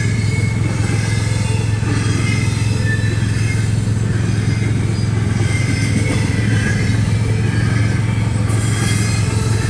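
Double-stack intermodal container freight train rolling steadily past a grade crossing, heard from inside a stopped car: a continuous low rumble of wheels on rail with faint high wavering tones above it.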